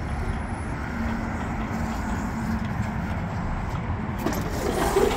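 Steady low rumble of road traffic and car engines outdoors, a little louder near the end.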